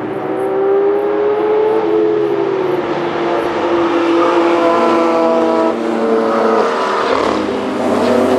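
Car engines running hard at speed, with several engine notes overlapping and their pitch rising and falling as they accelerate and ease off.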